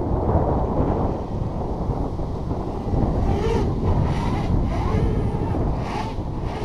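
Wind buffeting the microphone. Through it, the faint whine of a mini quadcopter's electric motors rises and falls with the throttle from about three seconds in.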